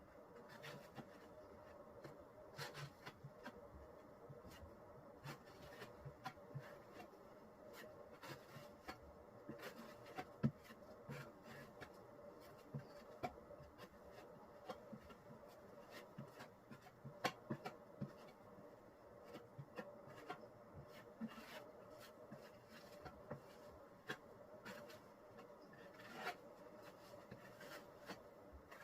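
Faint, irregular scraping and clicking of a blade spreading a second coat of Henry Feather Finish cement over a laminate table top, over a steady low hum.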